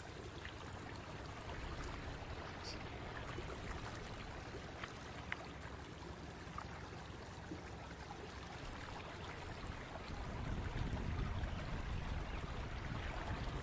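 Water splashing and churning from a large crowd of fish thrashing at the surface against a net barrier, a steady watery hiss with scattered small splashes. A low rumble grows louder about ten seconds in.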